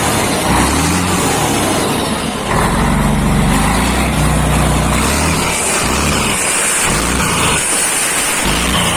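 Volkswagen Constellation truck's diesel engine running through a widened 4½-inch exhaust, a loud deep rumble. It holds a steady, stronger note from about two and a half seconds in to about five, then rises and falls unevenly.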